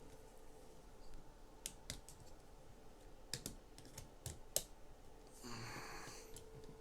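Lego Technic plastic parts being handled and pressed together: a scattering of sharp plastic clicks, the last the loudest, then about a second of rustling as pieces are moved near the end.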